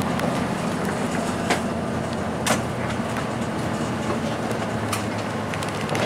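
Inside a 2002 Blue Bird CS transit bus on the move: its Cummins ISC diesel engine runs with a steady low drone under road noise. A few sharp clicks or rattles from the cabin cut through, the loudest about two and a half seconds in.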